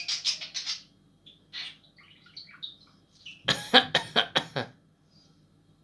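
Pet budgerigar chattering and chirping: a burst of chatter at the start, a few soft chirps, then a louder run of about five quick harsh sounds about three and a half seconds in, which the owner takes for the bird coughing.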